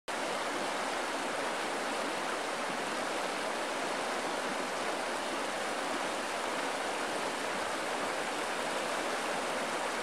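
Steady, even rush of flowing river water, with no changes or separate events.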